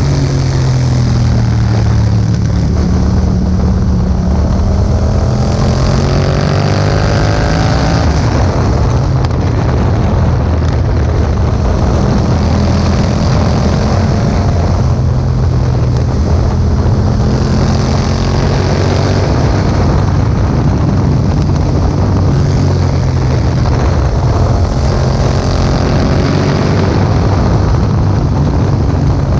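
A 2018 Yamaha MT-07's parallel-twin engine runs through an Akrapovic exhaust, rising through the revs and easing off several times while riding. Wind noise rushes over the microphone.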